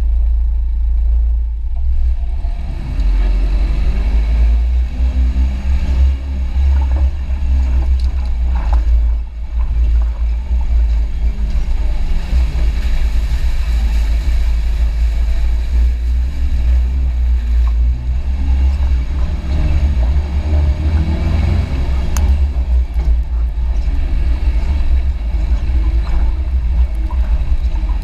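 Vehicle engine running while driving, a heavy steady low rumble with uneven rattling noise above it.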